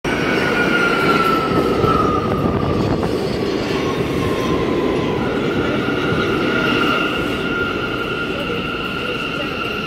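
R179 New York City subway train pulling into a station and slowing to a stop: a dense rumble of the passing cars, with a high whine that falls in pitch over the first five seconds and then holds steady, the whole sound easing off as the train slows.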